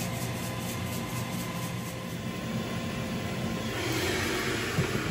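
Ninja Foodi AG301 indoor grill's fan running steadily with a low hum. About four seconds in, a hiss begins as food goes onto the preheated grill plate, with a short knock just after.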